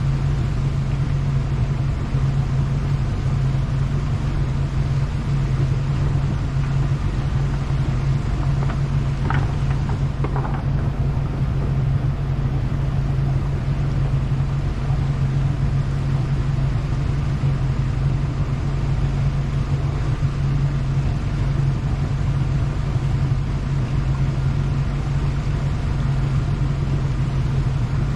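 An engine running steadily at idle: a low, even hum that holds one pitch.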